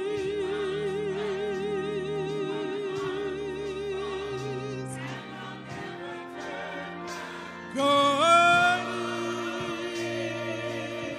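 Gospel choir singing over sustained church organ chords and low bass notes. A held note with steady vibrato lasts about five seconds; about eight seconds in a loud rising swoop is the loudest moment.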